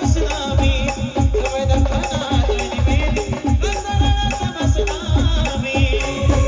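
Live band music in Ahirani folk style: a heavy drum beat about twice a second with a jingling rattle on each beat, under a sustained melody line.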